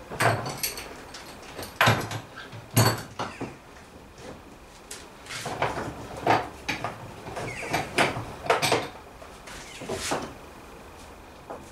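Knocks and clatter of wooden gunwale strips and clamps being handled on a boat: three sharp knocks in the first three seconds, then a busier run of knocks and rattles.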